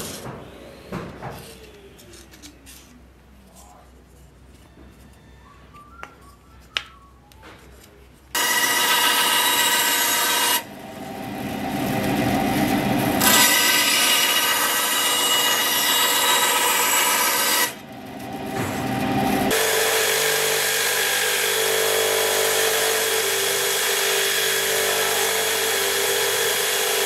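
A few light clicks and taps of metal knife fittings being handled, then a band saw running and cutting a thin strip of light wood, starting abruptly about eight seconds in. After a short break a belt grinder runs steadily.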